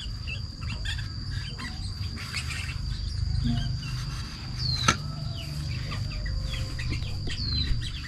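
Outdoor ambience of small birds chirping in short falling calls over a steady high insect drone, with a low rumble underneath. One sharp click about five seconds in.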